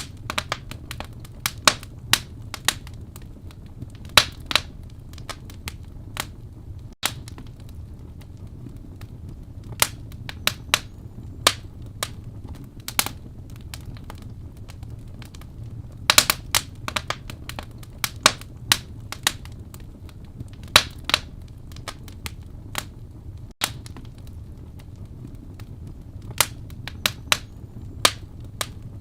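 Wood fire burning in a fireplace: irregular sharp pops and snaps over a steady low rumble of the flames, with a dense cluster of pops about halfway through.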